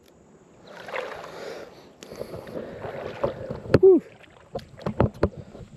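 Footsteps crunching on a gravel and rock shoreline, with scattered sharp knocks and water sloshing at the edge. A short grunt comes about four seconds in, followed by a quick run of knocks.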